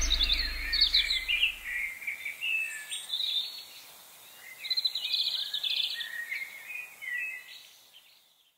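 A small songbird chirping and twittering in short phrases, with a rapid trill about halfway through, stopping shortly before the end. A deep low hum fades out over the first two seconds.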